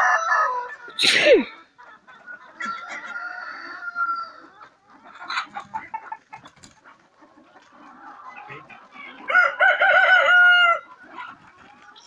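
Flock of Kuroiller chickens clucking and calling, with a rooster crowing. A quieter drawn-out call comes about three seconds in, and a loud wavering crow lasting about a second and a half comes near the end.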